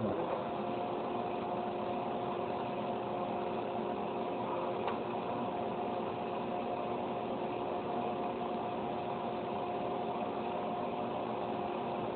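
Vacuum cleaner running steadily: a constant rush of air with a few steady motor tones over it.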